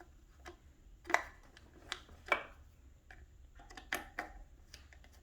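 Scattered light clicks and taps of hand tools and small parts being handled while a scooter is taken apart, about four clear ones and a few fainter.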